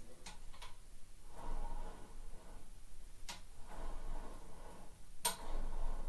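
A few scattered sharp clicks and light knocks of hand work, the loudest about five seconds in, with faint clatter between them.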